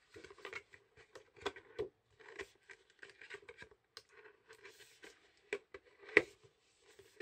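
Figure packaging being handled by hand: scattered rustles and light clicks, with one sharper, louder click about six seconds in.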